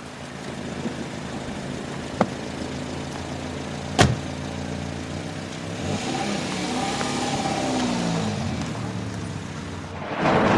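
Car engine running, with a faint click about two seconds in and a sharp knock about four seconds in. The engine pitch rises and falls in the middle, and a loud rush of noise comes in near the end.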